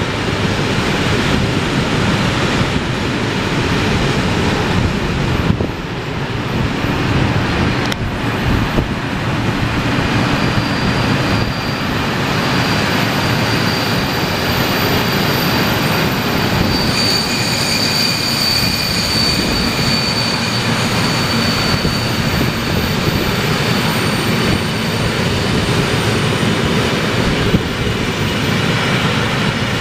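Slow freight train passing: the two HŽ 2062 diesel locomotives go by at the start, then a long string of hopper wagons rolls past with steady wheel noise. A thin, high wheel squeal sets in about ten seconds in and grows stronger from about seventeen seconds.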